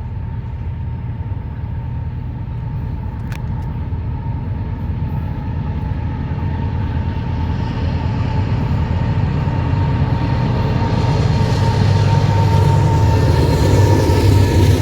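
Loaded covered-hopper cars of a grain train rolling past: a steady low rumble of wheels on rail with a thin steady ringing tone above it. One sharp click comes about three seconds in, and the train grows louder toward the end.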